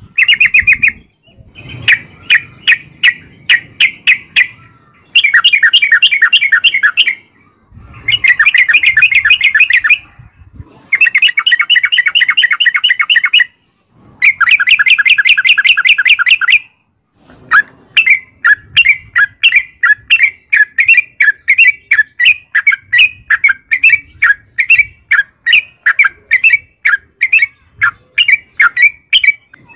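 Yellow-vented bulbul singing: four long, fast rattling runs of rapid notes, each about two seconds, followed by an unbroken string of short chirps at about three a second.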